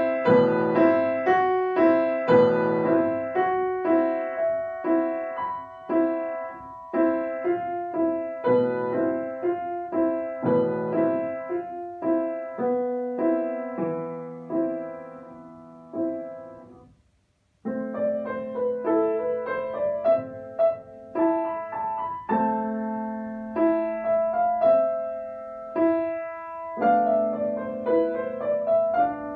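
Solo grand piano playing classical pieces. About two-thirds of the way through, one piece ends with a last chord dying away to silence, and after a pause of about a second the next piece begins.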